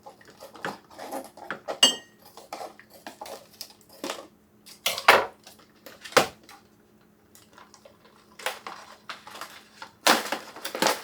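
Sealed food pouches being opened and handled: irregular rustling, crinkling and knocks, with a short ringing clink about two seconds in and heavier handling noise near the end.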